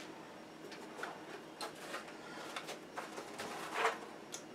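Faint clicks and short rustles of objects being handled, among them a cardboard box, with a louder rustle near the end.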